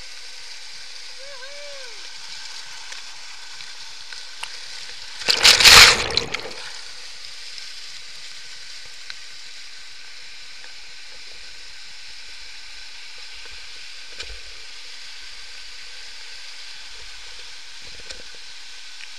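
Small waterfall cascading over rock close to the microphone: a steady rush of falling water, with a loud burst of splashing about five seconds in.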